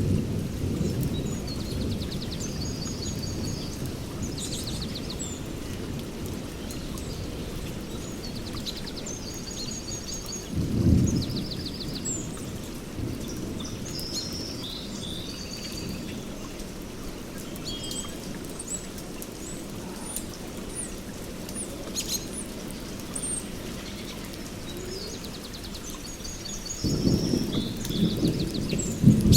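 Heavy rain falling on forest foliage with low rolling thunder, swelling briefly about eleven seconds in and building again near the end. Small songbirds chirp and trill in short high-pitched phrases throughout.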